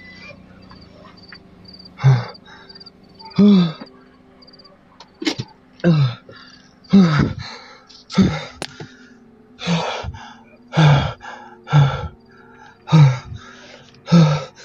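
A man panting and gasping hard, a voiced breath about once a second, each with a falling pitch. A faint high-pitched beeping runs under the first few seconds.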